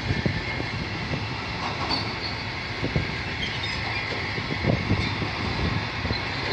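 A long freight train of covered bogie wagons rolling past: a steady rumble of wheels on the rails, with a few sharp knocks from the wagons.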